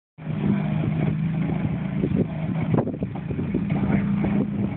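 Geo Tracker's four-cylinder engine running steadily at low revs as the 4x4 crawls down a steep rock ledge, with scattered short knocks over it.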